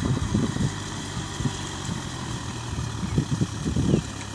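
Kubota M6040SU tractor's four-cylinder diesel engine running steadily at a distance while it works a flooded rice paddy. Irregular low buffeting thumps come and go over it.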